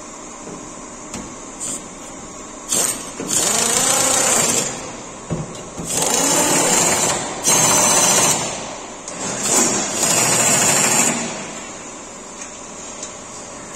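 Impact wrench driving bolts on a steel clamp fixture, running in four bursts of one to two seconds each, its pitch winding up and down within each burst.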